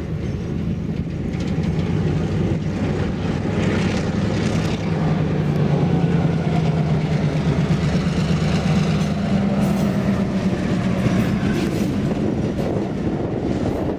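EMD SW1500 switcher's 12-cylinder two-stroke diesel engine running at a steady low drone as the locomotive rolls past close by, with the rumble of a boxcar and its wheels on the rails. It gets louder over the first few seconds as the engine draws level.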